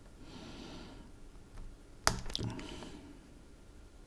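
One sharp metallic click about two seconds in, then a second of light scraping and handling, as pliers and a small screwdriver pry at the metal casing of a small rotary potentiometer to open it.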